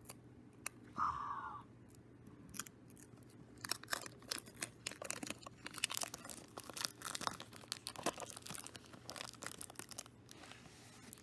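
Cellophane wrapper being torn and peeled off a sealed Sony LNX cassette case, a dense run of crinkling and crackling that starts about four seconds in and goes on for about six seconds.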